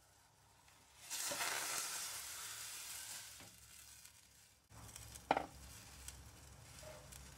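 Marinated chicken drumsticks and soy marinade poured from a ceramic bowl into a pot of boiling water, a loud hissing splash about a second in that fades over the next two seconds. Later a single sharp clink.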